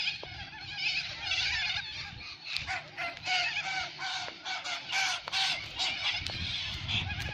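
Many birds calling at once: a continual din of short, harsh, chattering calls overlapping one another.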